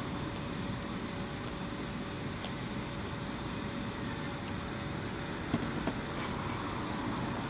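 Steady outdoor background rumble and hiss, like a distant engine or traffic, with a few faint clicks and no gunshot.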